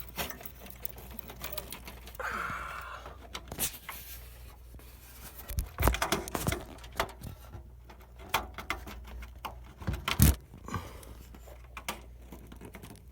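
Scattered clicks, taps and plastic clatter of hands fitting a cable connector into a computer's motherboard inside the case, with a scrape about two seconds in and heavier knocks near the middle and about ten seconds in.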